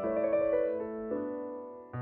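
Slow background piano music: held notes and chords that fade away toward the end, with a new chord coming in just as it ends.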